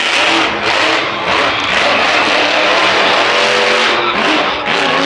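Grave Digger monster truck's supercharged V8 engine revving hard, its pitch rising and falling.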